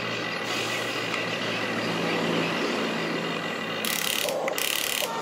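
Huina RC excavator's electric motors and gears whining as the boom and bucket move, the whine stepping up in pitch about two seconds in. Two short hissing bursts come near the end.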